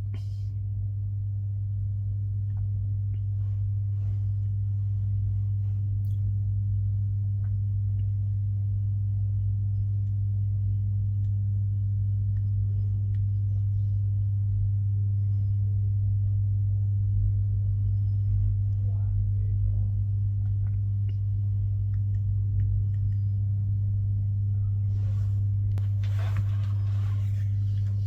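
A steady low hum with scattered faint ticks, and a short stretch of rustling and handling noise near the end.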